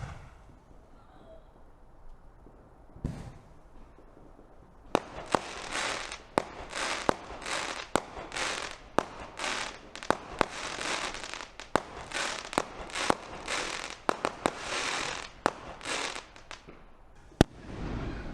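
Fireworks going off: a couple of sharp bangs, then from about five seconds in a long run of crackling, hissing bursts, each opening with a sharp crack, about two a second. A single loud bang comes near the end.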